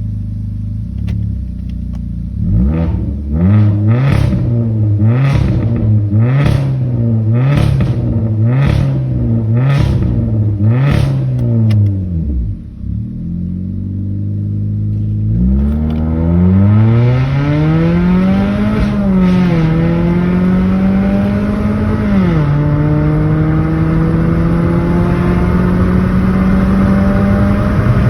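Straight-piped 1.8-litre four-cylinder engine of a first-generation Chevy Cruze, with its muffler and resonator deleted, revved in quick throttle blips about once a second for the first ten seconds or so, popping and crackling through the exhaust. After a brief dip it pulls up steadily in pitch under acceleration, the pitch falling sharply at each upshift: twice, and once more at the very end.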